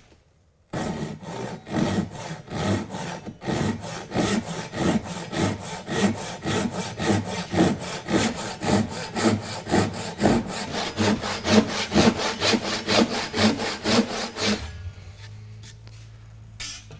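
Japanese pull saw cutting across a softwood beam in rapid, even strokes, the blade running in kerfs already scored along the line. The sawing stops a couple of seconds before the end.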